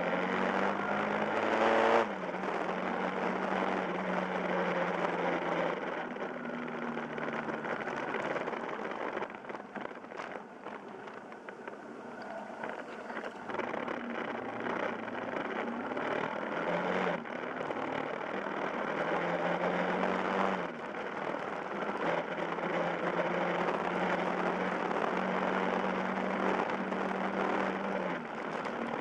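Yamaha Fazer YS250's single-cylinder four-stroke engine under way, heard from the rider's seat over wind rush. Revs climb for about two seconds then drop abruptly at a gear change. The engine then runs at fairly steady revs, eases off and quietens about ten to thirteen seconds in, and steps in pitch again around seventeen and twenty seconds in.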